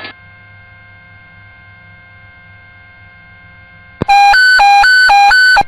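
Police radio channel open with steady hiss and hum, then about four seconds in a loud radio alert tone: a low and a high beep alternating about four times a second, three rounds, for a second and a half.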